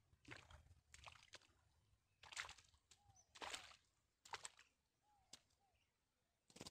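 Cast net being hauled out of shallow water: faint splashing and water streaming off the mesh in short bursts, about one a second.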